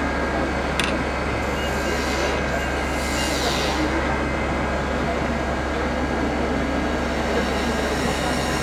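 Wood lathe running with a steady hum while a hand-held turning tool cuts a small spinning piece of wood, with a brighter hiss of cutting about two to four seconds in.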